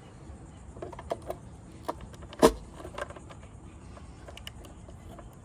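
Scattered small clicks and knocks of a screwdriver and stranded wires being worked into the spring-clamp terminal block of a plastic control box, as the screwdriver presses the clamp open and the wire is pushed in. The loudest knock comes about two and a half seconds in.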